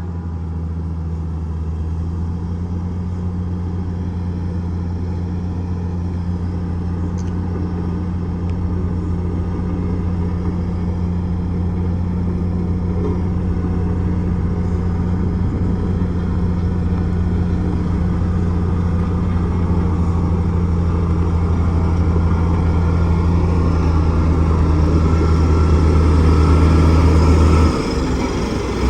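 Bulldozer's diesel engine running steadily under work, growing gradually louder, with a brief drop in the engine note near the end.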